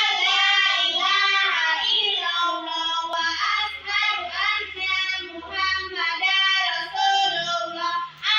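Young children singing a song together in high voices, phrase after phrase with short breaks between.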